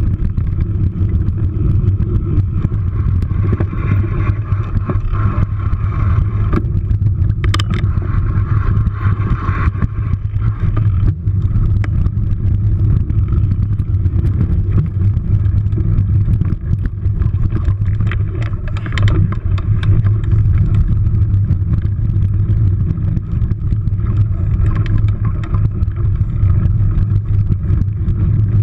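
Steady low rumble of wind and tyre noise on a mountain bike's action camera riding singletrack over dry leaves, with scattered clatters and knocks from the bike over bumps, the sharpest about seven and a half seconds in.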